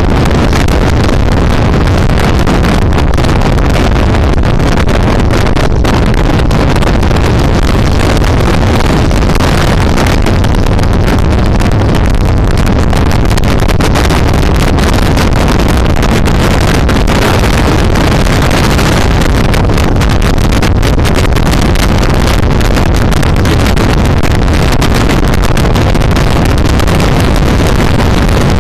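Steady wind buffeting on the microphone over a motorcycle engine running at cruising speed.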